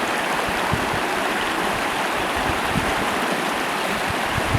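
Mountain river rushing, a steady hiss of fast water.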